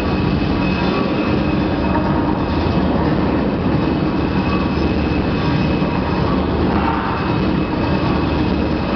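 Loud, steady rumbling din of a crowded sports arena, amplified backing music and crowd noise blurred together by the hall's echo, with a few held tones running through it.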